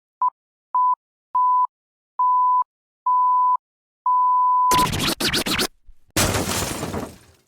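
Intro sound effect: six electronic beeps at one pitch, each longer than the last, the sixth cutting into a loud crackling burst of noise, followed by a second burst of noise that fades away.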